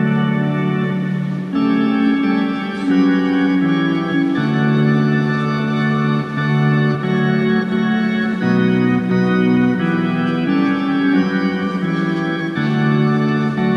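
Background music: a slow organ chorale of held chords that change every second or two.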